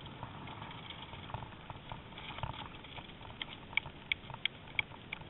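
Horse-drawn tandem carriage moving through an obstacle, with a steady rumble and scattered knocks from the wheels and harness. About halfway through, a run of short, sharp, high clicks begins, roughly three a second.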